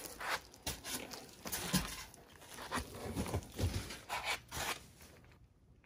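Bubble wrap and cardboard crinkling and rustling as a wrapped circuit board is handled over its box. The noise comes in irregular bursts and stops suddenly near the end.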